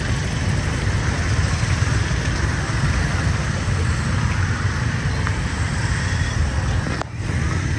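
Busy city street ambience: a steady mix of car and motorbike traffic running on the road beside the sidewalk, with the voices of a crowd of passers-by.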